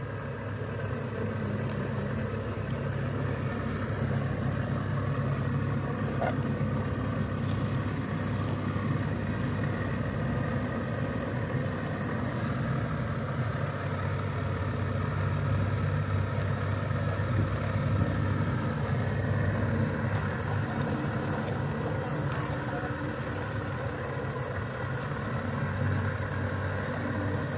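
Radio-controlled excavator's motors running with a steady hum as it digs and swings its boom.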